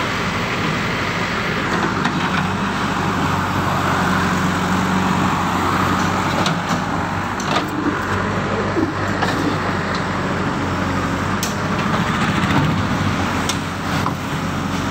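JCB 3DX backhoe loader's diesel engine running steadily while it digs a trench, mixed with passing road traffic. A few sharp knocks come in the second half.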